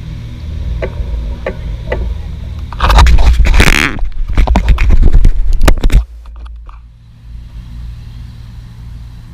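Steady low wind rumble on the camera's microphone, with a few faint clicks early. About three seconds in, a loud rough scraping and rustling against the camera runs for about three seconds, then cuts off suddenly, leaving a quieter rumble.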